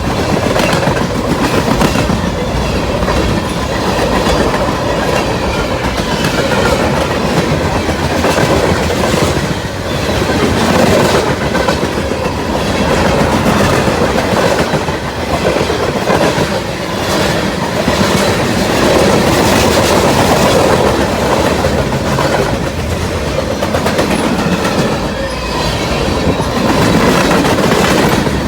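Freight cars of a CSX manifest train rolling past, with a steady loud rumble and repeated clicking of wheels over rail joints.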